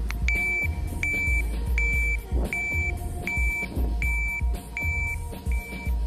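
Electronic sounder on a portable traffic light beeping: eight evenly spaced high beeps, about three-quarters of a second apart, over background music with a heavy beat.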